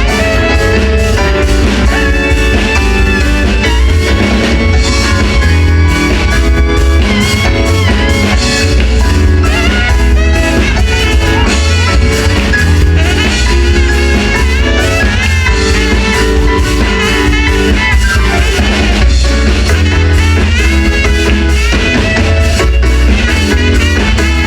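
Live band playing Motown-style music, with bass, drums and guitar, loud and steady throughout.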